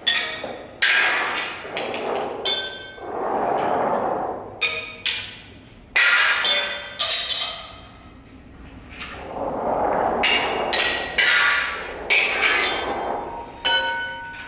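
Improvised percussion on wooden slats and small found objects: a string of sharp knocks and clinks, some ringing briefly, between two longer swelling rustling or rubbing passages.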